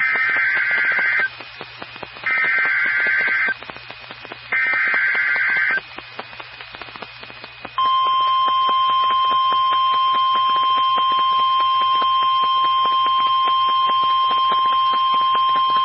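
NOAA Weather Radio Emergency Alert System activation. First come three short bursts of SAME digital header tones, about a second apart. About 8 seconds in, the long, steady single-pitch warning alarm tone starts, signalling that a severe thunderstorm warning is about to be read.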